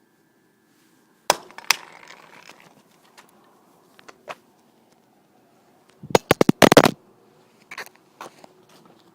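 Sharp cracks and knocks: two loud hits about a second in, scattered clicks, then a rapid string of loud cracks around six seconds in.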